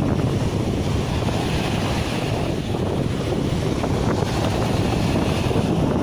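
Small waves breaking and washing up a sandy beach in foamy surf, with strong wind buffeting the microphone as a steady low rumble.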